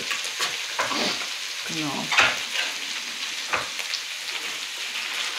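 Minced meat and diced carrots frying in a pan with a steady sizzle, with a few sharp light knocks over it.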